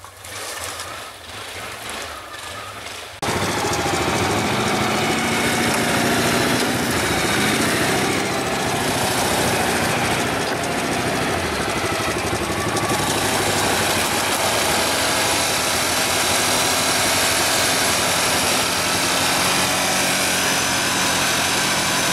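Four-wheel ATV engine running steadily, close up, while the quad works through deep snow on its winch cable; its pitch rises and falls a little. About three seconds in the sound jumps suddenly from a quieter, more distant engine to the loud close one.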